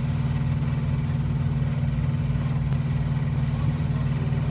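Semi-truck diesel engine idling nearby, a steady low drone.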